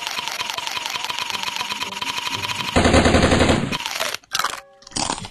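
A fast, even rattle like gunfire, louder for about a second just past the middle, then a few separate crunching bites of hard candy near the end.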